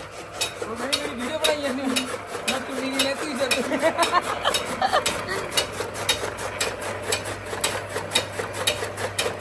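Flywheel chaff cutter chopping green fodder as it is fed in, its blades clacking in a steady rhythm of about three a second over a constant hum.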